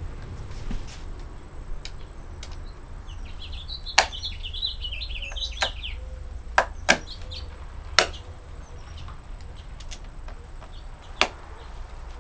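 Sharp metal clicks and knocks, about six in all, as the aluminium quick-release mount is fitted to the motorcycle rack and its cam locks are snapped shut. A bird chirps in a quick run of notes around four to six seconds in.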